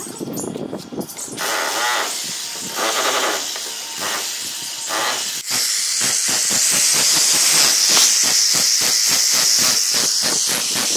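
Electric hammer drill boring into a concrete wall top, running in short spurts at first and then steadily from about halfway through, with a fast rattling hammer and a high hiss.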